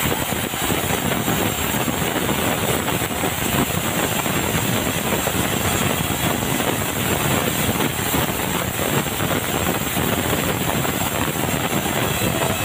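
Sawmill saw ripping a dry bengkirai (yellow balau) beam lengthwise, a steady, loud, dense cutting noise that changes abruptly near the end as the cut finishes.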